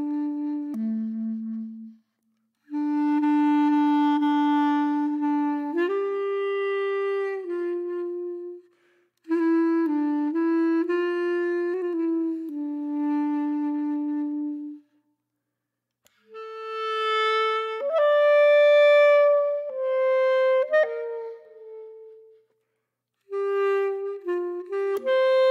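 Background music: a slow, mournful-paced melody on a solo woodwind, played in phrases of a few sustained notes with short pauses between them.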